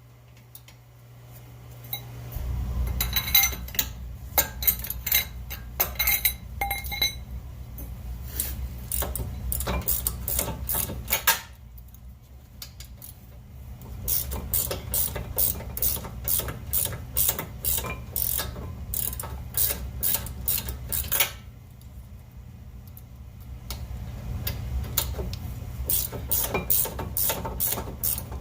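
Ratchet wrench clicking in quick runs as a bolt on the front brake caliper bracket is worked loose, with a low steady hum underneath from about two seconds in.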